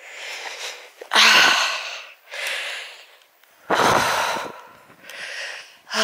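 A hiker's heavy breathing close to the microphone while climbing a steep slope: about five loud, breathy in-and-out breaths roughly a second apart, the heaviest just under four seconds in.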